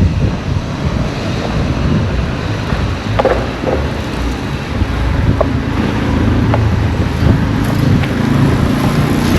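Road traffic with wind buffeting the microphone. A vehicle engine rumbles close by and grows a little louder about halfway through.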